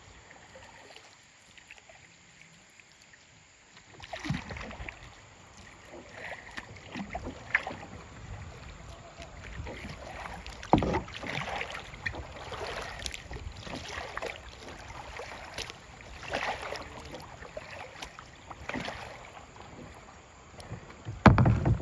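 Kayak paddling: irregular paddle strokes splashing and swishing in river water, starting about four seconds in, with a loud thump near the end.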